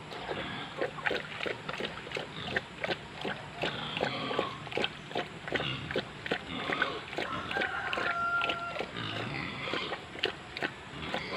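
A pig eating azolla out of a shallow metal bowl: quick, irregular chewing and slurping noises, a few a second.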